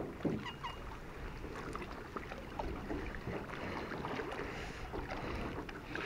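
Wind noise with scattered light clicks and knocks from gear being handled in a boat.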